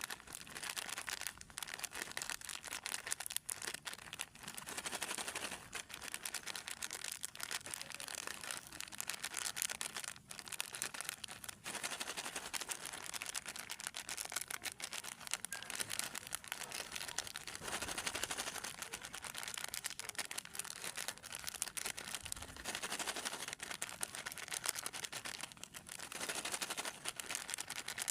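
Plastic snack packaging crinkling and rustling as it is handled: a continuous, irregular crackle of small clicks.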